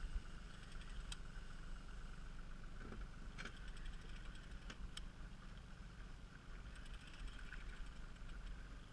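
A 40 hp outboard motor running steadily at trolling speed, heard faintly as a low hum, with a few faint ticks scattered through.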